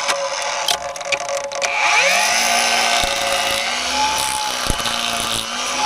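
Small motorised pine-tapping tool with a four-blade cutter running against a pine trunk, renewing the resin-tapping wound. The motor whine rises in pitch about two seconds in, then runs steadily while it cuts.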